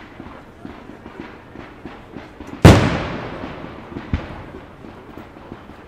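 Fireworks display: one loud firework bang a little under halfway through, echoing away over the next couple of seconds, and a smaller bang about a second and a half later, over a run of light pops and crackles.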